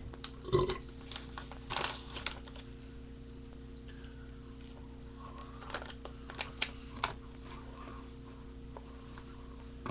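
A few scattered clicks and taps at an irregular pace, the loudest about half a second in, over a steady low electrical hum.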